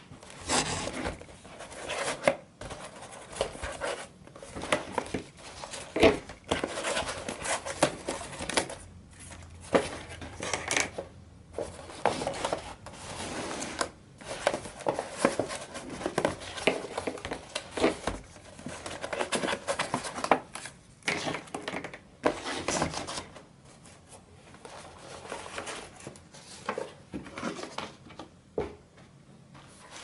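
Folded cardstock pieces of an origami combination lock being handled: dry paper rustling, sliding and scraping, broken by many short taps and clicks in an irregular run.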